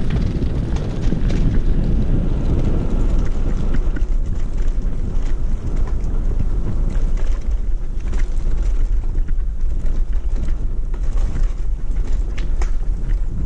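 Wind buffeting the microphone: a loud, steady low rumble, with scattered light clicks and crackles over it.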